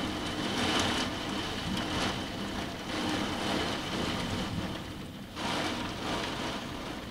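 Heavy rain pelting a window pane during a thunderstorm, the hiss swelling and easing in waves.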